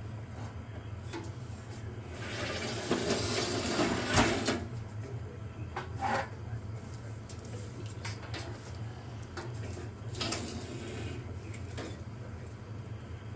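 Metal parts of a Hewlett-Packard 606A signal generator scraping and knocking as it is taken apart by hand, with a longer scrape a couple of seconds in and a few clunks later. A steady low hum runs underneath.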